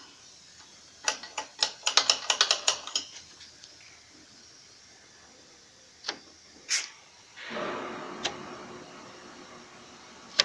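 A shop press being worked down onto a clutch cover and dual-mass flywheel. About a second in there is a quick run of sharp metallic clicks, then a few single clicks. Near the end comes a rush of noise that fades slowly.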